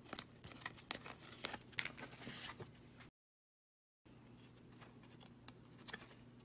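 Glossy hockey trading cards sliding and flicking against each other as a stack is shuffled through by hand: a run of soft scrapes and clicks, cut by about a second of dead silence about three seconds in, then fainter handling over a low hum.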